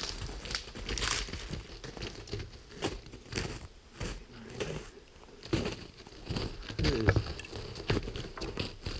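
Footsteps crunching through shallow snow in an irregular run of short crunches.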